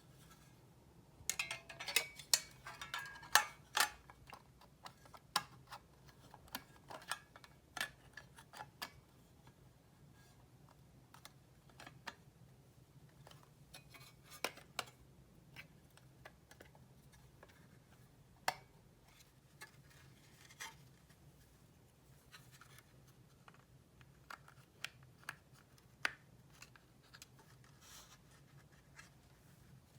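Small hand tools clicking, tapping and scraping on small model-car parts. The sounds come thick and fast for the first several seconds, then as scattered single clicks.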